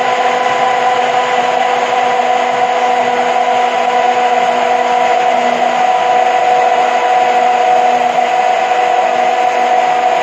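Hand-held immersion blender running steadily with a constant motor whine, its blade whipping eggs and sunflower oil in a plastic beaker as they emulsify into alioli.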